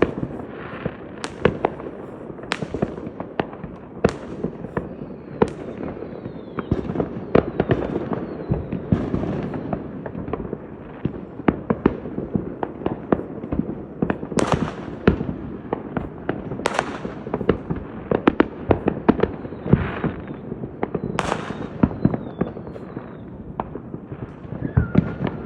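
Fireworks going off without a break: a dense run of bangs and crackles, with louder booms about 14, 17 and 21 seconds in.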